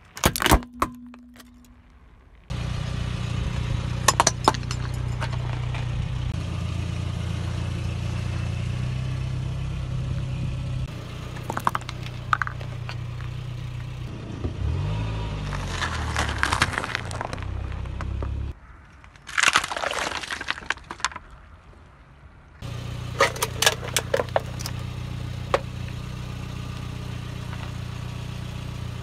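A car tyre rolling over and crushing plastic and metal objects (plastic sunglasses, plastic pill bottles, a thin metal pipe), giving several bursts of sharp cracking and crunching over the car's engine running low and steady. The engine sound cuts in and out abruptly between the clips.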